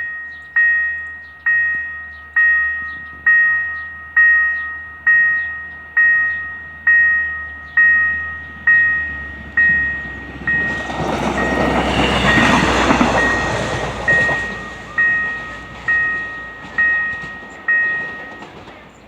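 Railroad crossing warning bell striking about once a second, each stroke ringing and dying away, and stopping about a second before the end. Over it, a track inspection car rolls across the crossing, its rumble swelling and fading in the middle.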